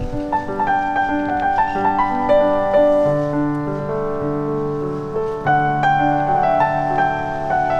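Background piano music, a gentle melody of single notes over held lower notes.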